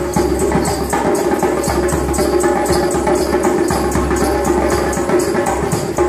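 Busker's djembe played by hand in a steady, repeating beat, over music with steady sustained tones.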